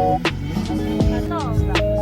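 Background music with a steady beat and sustained notes, with what may be a sung or rapped voice line.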